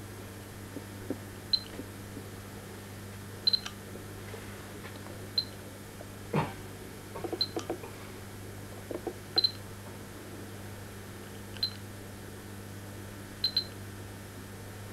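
Short high electronic beeps about every two seconds, some of them doubled, over a steady low electrical hum. There is a single knock about six seconds in and a few soft clicks just after.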